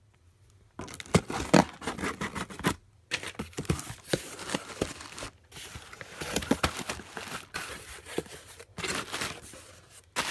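A cardboard shipping box being opened and its plastic air-pillow packing handled: irregular crinkling, rustling and scraping of cardboard and plastic. It starts about a second in, with short breaks around three seconds and near the end.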